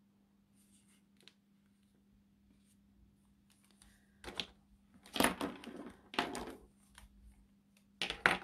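Copic alcohol markers being handled: a few short plastic clicks and clatters, about four, after a quiet start, over a faint steady hum.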